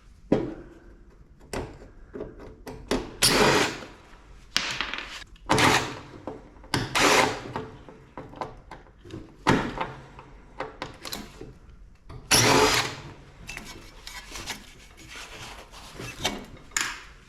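Tool work on scrap metal: a series of short, irregular bursts of power-tool and metal noise, each under a second long.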